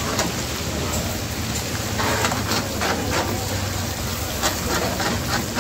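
Chicken pieces and whole tomatoes sizzling in hot oil in a steel karahi, with a metal ladle clicking and scraping against the pan several times from about two seconds in and again near the end.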